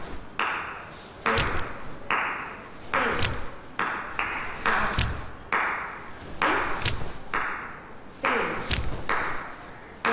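A dance teacher's wooden stick striking a wooden block, beating time for a dance class: sharp strokes in a steady pattern, often in pairs, each with a short ringing tail.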